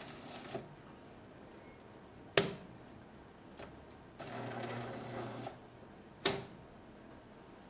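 Brother Electra 60 electric typewriter running under computer control: two loud, sharp type strikes a few seconds apart, a fainter click between them, and about a second of steady motor whirr from the mechanism moving.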